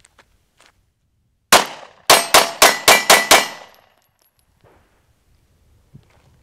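Springfield XD-S 9mm pistol firing 124-grain Gold Dot hollow points: a single shot, then six quick shots at about four a second, with steel targets ringing from the hits.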